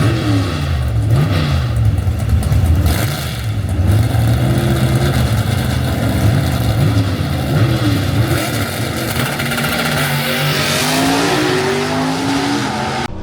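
Race car engines revving, their pitch climbing and falling again and again, with several rising runs near the end. The sound cuts off abruptly at the very end.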